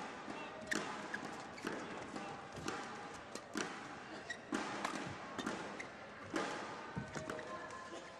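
Badminton rally: rackets striking the shuttlecock about once a second, each hit a sharp crack, over a steady background of hall noise.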